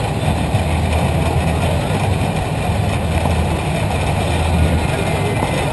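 Steady low rumble of a Dalek-shaped ride-on robot rolling across asphalt, picked up by a camera mounted on its body.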